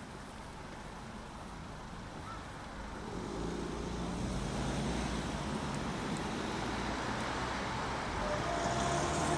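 Diesel multiple unit's engines running as the train comes slowly up the track, the low drone getting louder about three seconds in. A faint steady tone joins near the end.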